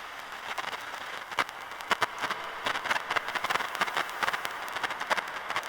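Fireplace crackle sample: irregular sharp pops and crackles over a steady hiss of noise.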